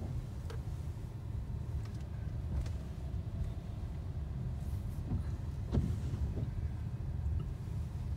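Low, steady rumble inside a slowly moving car's cabin: engine and tyre noise, with a few faint ticks.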